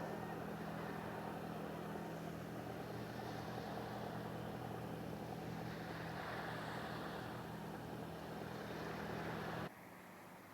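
A sailboat's auxiliary engine running steadily with a low, even hum under water and wind noise. It cuts off abruptly near the end.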